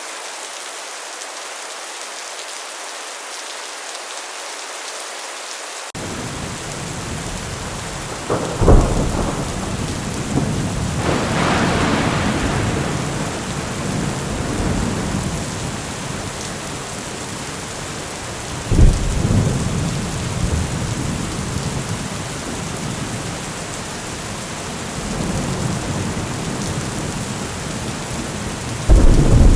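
Thunderstorm: steady heavy rain, joined about six seconds in by a deeper rumbling. Sharp thunderclaps come about eight and nineteen seconds in and again at the end, with thunder rolling for several seconds after the first.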